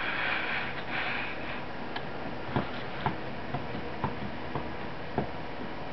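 Faint ticks, six of them about half a second apart, starting near the middle, over a quiet room with a soft hiss at first.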